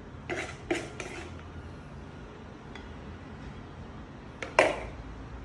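Metal spoon clinking against a plastic mixing bowl and a glass baking dish as batter is spooned out: two short clatters near the start and one louder, sharp clink about four and a half seconds in.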